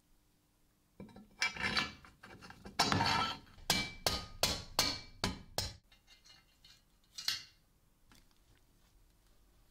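Metal parts of an idler pulley being assembled by hand, as the axle bolt is fitted through the hub. Scraping and handling noise first, then a quick run of about seven sharp metallic clinks, then a single knock a little later.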